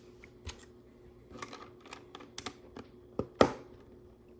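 Plastic LEGO bricks and pieces clicking as they are handled and fitted together: scattered light clicks, the loudest about three and a half seconds in.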